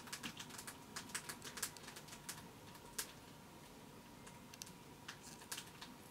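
Faint, irregular small clicks and ticks of fine wires being handled and positioned on a drone flight controller board at the soldering iron, thinning out after about three seconds. A faint steady high hum runs underneath.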